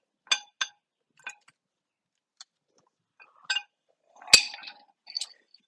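Pipe wrench on a dented wheel rim lip, clinking and clicking several times as it is levered, then a single sharp, loud metallic crack about four seconds in as the bent rim flange gives.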